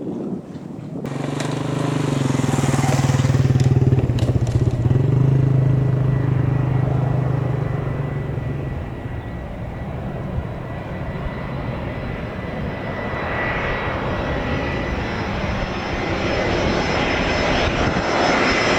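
Jet engines of a Citilink Airbus A320 running loud close by: the roar comes in sharply about a second in, with a deep hum strongest over the next several seconds. A steady high whine of the engines comes through later.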